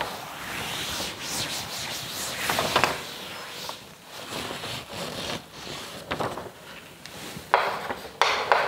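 Cloth wiping a chalkboard clean in repeated swishing strokes, followed near the end by chalk scraping and tapping on the board as writing begins.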